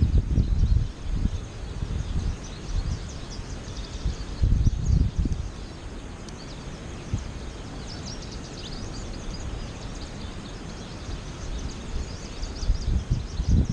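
A flock of American goldfinches twittering, a steady run of short high calls that thickens about eight seconds in and again near the end. Wind buffets the microphone in low rumbling gusts at the start, about five seconds in, and at the very end.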